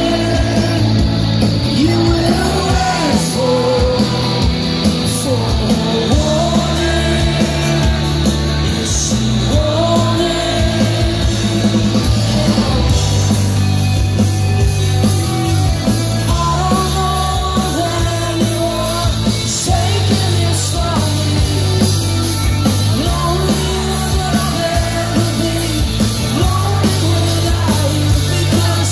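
Live rock band playing loud, with a lead singer, strummed acoustic guitar, drums and bass, steady throughout.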